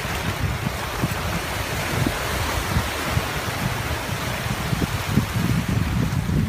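Small waves breaking and washing up over the sand in the shallows, with wind buffeting the microphone.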